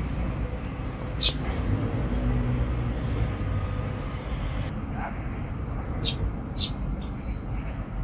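A few short, high chirps from Eurasian tree sparrows: two close together about a second in and two more about six seconds in, over a low steady rumble.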